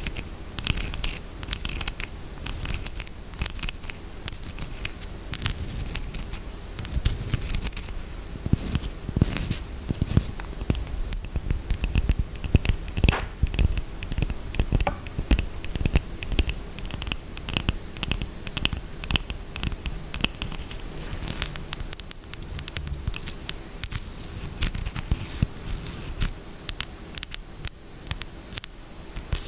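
Close-miked ASMR scratching on a soap and its packaging: many quick, irregular scratching strokes with light crinkling and occasional sharper clicks.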